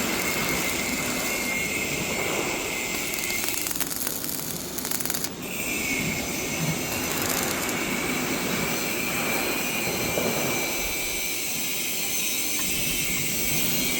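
Electric arc welding: a steady high sizzling hiss from the arc, which breaks off and crackles about four seconds in, then settles back about a second later.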